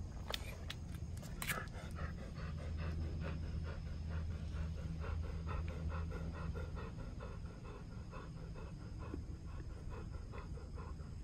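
Golden retriever panting rapidly and evenly, about four breaths a second, close to the microphone. A few sharp clicks sound in the first second or two.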